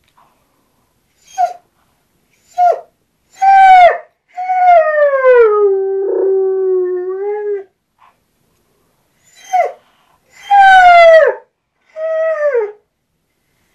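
Trail hound howling: a couple of short yips, then a loud howl that runs into a long one falling in pitch and holding a low note for about three seconds, then another yip and two shorter howls. The hound is howling in distress at his owner's absence.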